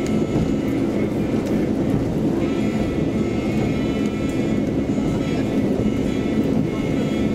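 KiHa 185 series diesel railcar running along the line, heard from inside the passenger cabin: a steady low rumble of engine and wheels on rail, with faint high whining tones that come and go.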